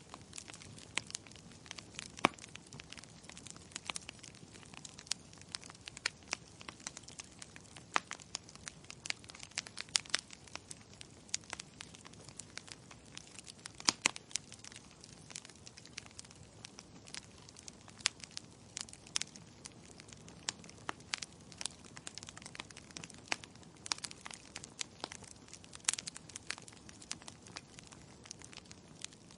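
Wood fire burning in a fireplace: irregular sharp crackles and pops from the burning logs over a low, steady hiss, with a few louder pops, the strongest about two and fourteen seconds in.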